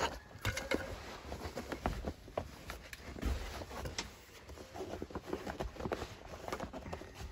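Heavy canvas boat top being handled: rustling of the fabric with scattered light clicks and knocks as a telescoping aluminium support pole is worked into its sewn pocket.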